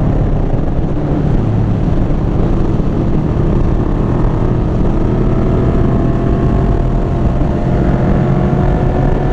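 1995 Yamaha Vmax 1200's V4 engine running steadily at road speed through a Delkevic carbon slip-on exhaust, its pitch drifting only slightly. Heard from a helmet-mounted mic with heavy wind noise.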